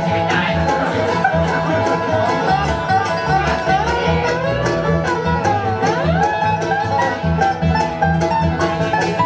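Bluegrass band playing live: five-string banjo picking fast, even rolls over strummed acoustic guitars, with a steady bass beat and a sliding melodic run near the middle.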